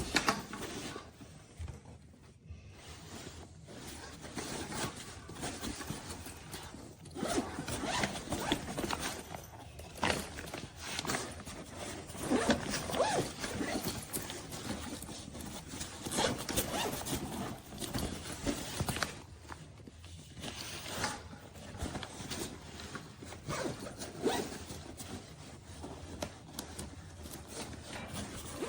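Zippers on an insulated backpack cooler being worked, with the rustle and scrape of its fabric being handled, in irregular bursts.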